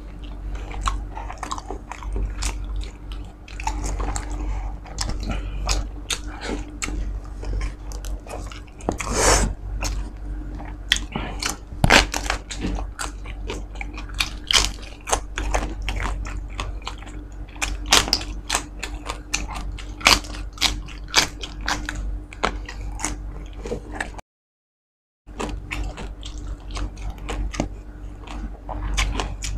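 Close-up crunching and chewing of crisp lechon de leche (roast suckling pig) skin and meat, with many sharp crackles. A steady low hum runs underneath, and the sound cuts out completely for about a second near the end.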